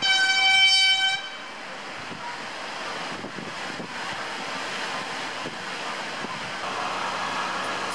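A blasting crew's signal horn gives one steady blast of about a second, then cuts off, leaving a steady rushing noise.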